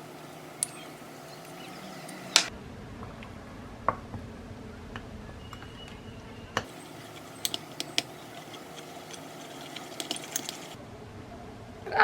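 Scattered light clicks and clinks of things being handled in a kitchen, over a steady low background hum, with a sharper knock about two and a half seconds in.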